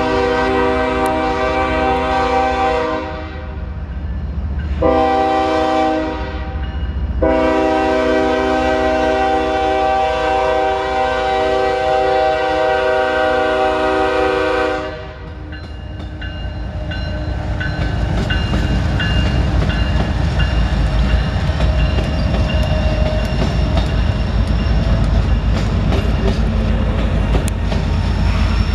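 Diesel locomotive's air horn sounding three blasts: one already sounding that stops about three seconds in, a short one, then a long one of about eight seconds. After the horn cuts off, the train keeps passing, rumbling with wheels clacking on the rails and growing louder.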